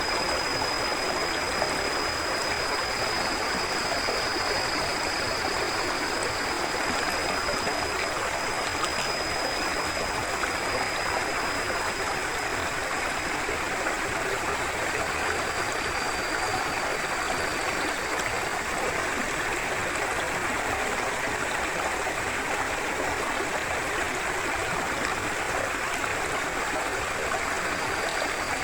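Forest river flowing steadily, an even rush of running water with no breaks. A thin, steady high-pitched tone sits over it for about the first half and comes back near the end.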